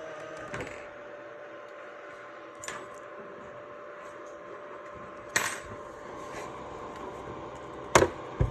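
A steady hum with a few sharp, clinking knocks at uneven intervals, the loudest two close together near the end.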